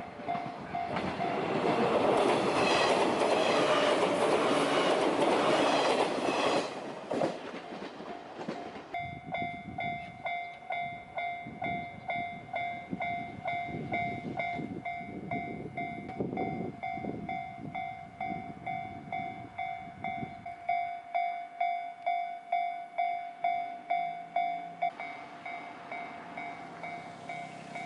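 A train running past the level crossing, its loud rush fading about seven seconds in. About nine seconds in, the crossing's warning bell starts ringing its steady, evenly repeated "kan-kan" and keeps on.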